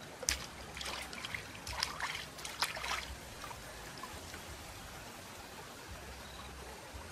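Shallow stream trickling over stones, with a run of splashes and sloshes in the first three seconds as a plucked duck is rinsed in the water by hand, then just the steady flow.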